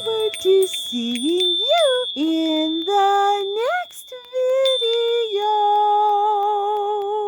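A high voice sings a short outro melody of rising glides and held notes, ending on a long note with vibrato. A steady high electronic tone sounds beneath it.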